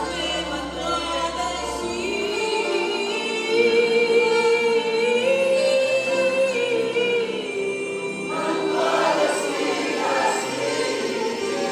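Church choir singing a worship song, recorded live in the room, with several voices holding long notes together before moving to a new phrase about eight seconds in.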